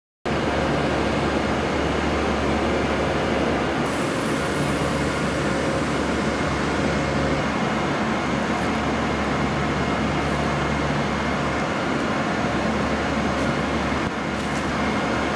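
Steady hum and hiss of an electric limited express train standing at the platform, with a few faint clicks near the end.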